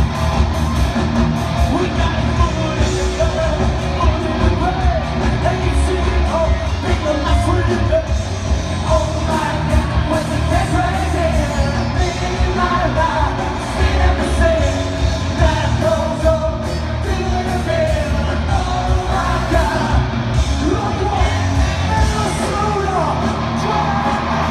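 Live concert music with a heavy, steady bass beat and a singer's voice over it, recorded from the audience.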